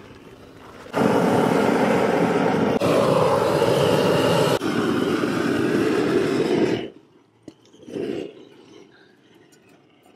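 Handheld propane roofing torch burning with a loud, steady rush of flame, heating SBS peel-and-stick rubber membrane to bond it. It starts suddenly about a second in, dips briefly twice, and cuts off about seven seconds in.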